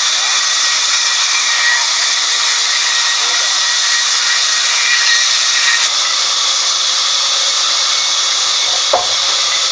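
Vertical band sawmill blade cutting lengthwise through a log, a steady loud high-pitched hiss, its highest part easing a little past halfway. A single sharp knock about nine seconds in.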